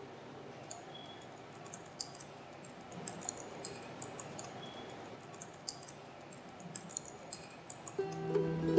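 Typing on a laptop keyboard: quick, irregular key clicks. Plucked-string music comes in near the end.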